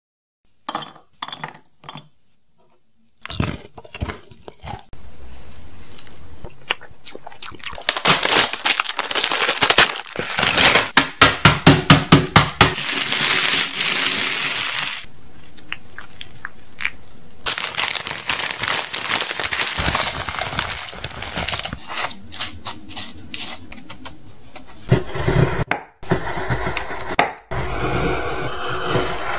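Cookies crushed inside a plastic zip-top bag with a wooden rolling pin: crinkling plastic and crunching with many sharp cracks, loudest in a quick run of cracks about ten seconds in. Near the end, a knife chopping a block of white chocolate on a wooden cutting board, a few separate chops.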